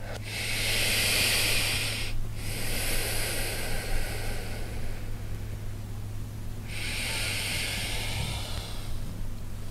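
A person breathing audibly while holding a yoga pose: three long, slow, airy breaths, with a pause before the last, over a steady low hum.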